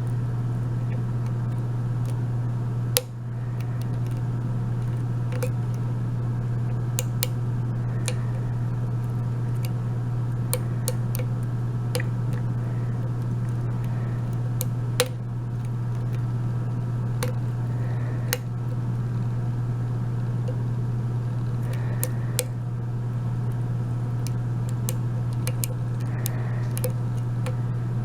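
Lock pick and tension wrench working the pins of an Abus 72/40 brass padlock during single pin picking: scattered small sharp clicks, with a louder click about 3 seconds in and another about 15 seconds in. A steady low hum runs underneath.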